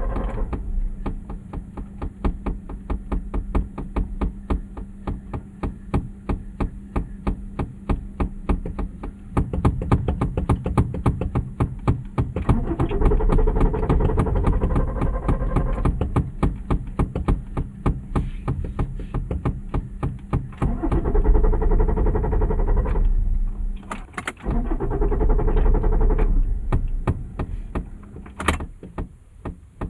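A car engine being cranked over by its starter again and again without catching, a fast, even chugging. It gets louder in several stretches, with a short break between two of them.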